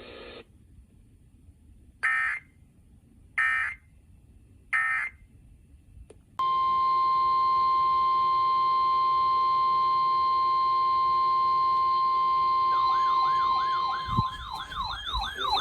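Emergency Alert System SAME header: three short bursts of data squawk. These are followed by the NOAA Weather Radio 1050 Hz warning alarm, a long steady tone. Near the end a second warbling alarm tone, rising and falling about three times a second, joins it as the steady tone cuts off.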